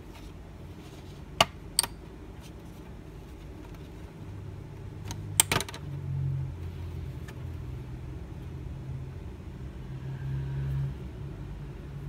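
Plastic snap clips of a laptop's bottom cover popping loose as the panel is pried up by hand: two sharp clicks about a second and a half in, then a quick cluster of snaps about five and a half seconds in. A low uneven rumble of the panel being handled runs underneath from about four seconds in.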